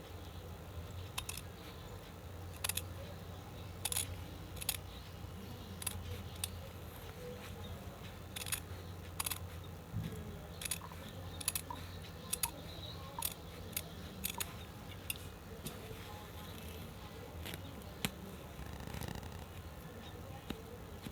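Scissors cutting cloth: a string of sharp snips at irregular intervals over a low steady hum.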